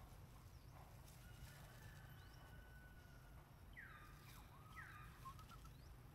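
Near silence: faint outdoor ambience with a low steady hum and a few faint high chirps, two of them about a second apart past the middle.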